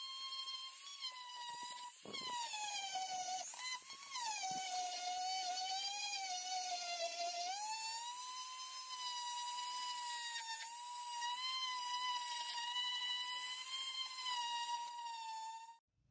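Hand-held rotary tool with a sanding drum whining at high speed as it sands a brass bill-hook handle. Its pitch drops for a few seconds in the middle as it bears on the metal, rises back, and the motor cuts off suddenly near the end.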